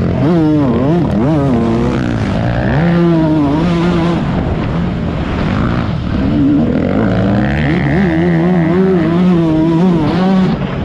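Motocross bike engine heard close up from on board, revving hard: its pitch climbs and drops again and again as the throttle is worked and gears change, holding steady for a couple of stretches, over wind and track noise.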